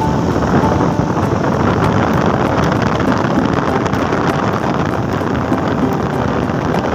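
Steady motorcycle riding noise: the engine and the road, with wind buffeting the microphone.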